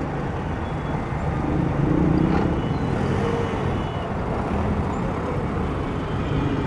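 City street traffic: a steady rumble of motor vehicles passing, swelling as one goes by about two seconds in.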